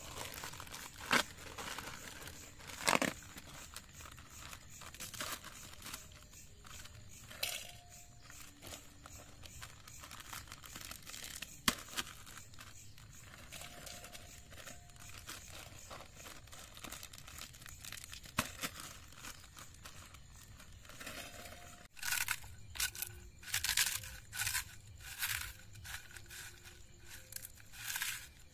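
Plastic crisp packet crinkling and tearing as it is emptied into a steel pan, then wavy potato chips crushed by hand in the pan. Near the end comes a dense run of dry crackling crunches.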